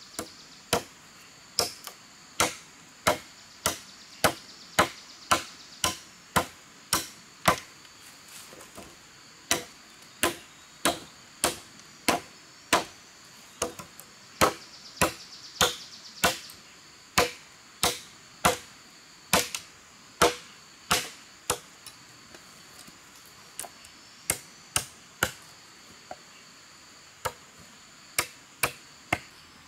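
Machete chopping into a thin wooden pole on the ground: a long run of sharp chops, about one to two a second, with a couple of short pauses.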